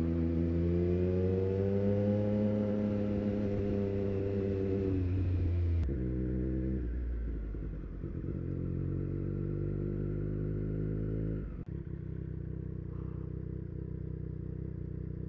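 The inline three-cylinder engine of a 2024 Triumph Street Triple 765 RS, heard through a Racefit Growler full exhaust, running at low road speed. The engine note rises over the first couple of seconds and then eases off. It drops abruptly about six seconds in and again near the twelve-second mark, settling to a lower steady note.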